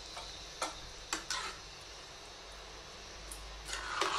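Metal spoon mixing cooked rice in an aluminium pressure cooker, with a few short scrapes and knocks against the pot: a couple in the first second and a half, then a cluster near the end.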